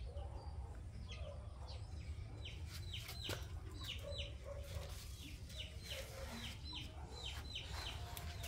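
Chicks peeping: a run of short, falling cheeps, several a second, over a steady low rumble.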